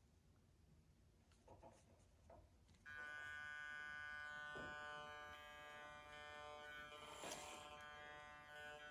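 A Hornby Flying Scotsman model locomotive's small electric motor starts up about three seconds in, after a few faint clicks, and then runs with a steady buzzing whine at low power. One short click comes near the end.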